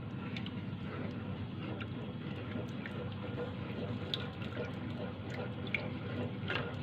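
Steady kitchen water noise with small scattered clicks and drips throughout.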